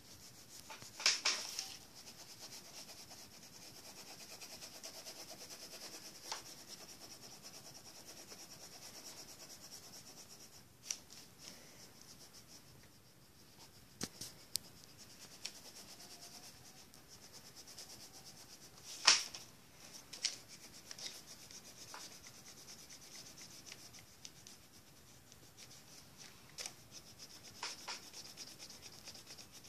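Red coloured pencil scribbling back and forth on paper to shade in a drawing, a steady scratchy rubbing. A few sharp taps and knocks come now and then, the loudest about a second in and about nineteen seconds in.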